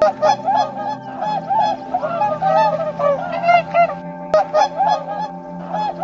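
Waterfowl honking: a rapid series of short nasal honks, broken by a brief pause about four seconds in, with a single sharp click during the pause.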